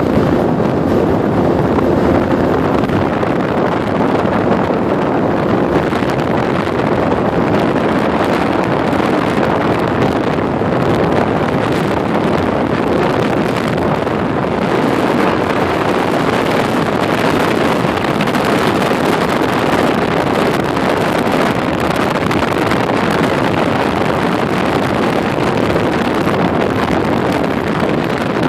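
Motorboat running steadily underway, with wind buffeting the microphone.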